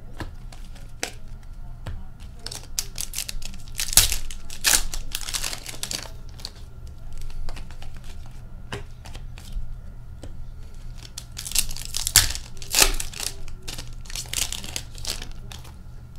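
Foil wrappers of Upper Deck hockey card packs being torn open and crinkled by hand, in two main spells of crackling about four seconds in and again about twelve seconds in, with lighter rustling of cards being handled between them.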